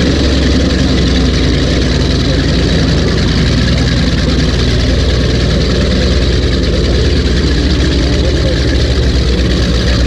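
Twin supercharged GM 598 cubic-inch big-block V8s of a 1998 Cigarette Racing Top Gun 38 powerboat running steadily, a deep, even engine sound with no clear revving.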